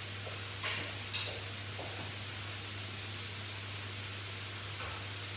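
Sliced fennel and shallots sizzling gently in olive oil in a pan, a steady hiss over a low hum. Two short scraping clicks come about a second in.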